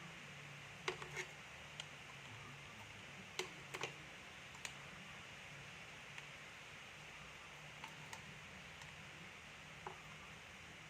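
Scattered light clicks and taps of small parts and tools being handled while an amplifier is reassembled, about a dozen at irregular intervals, over a faint steady hum.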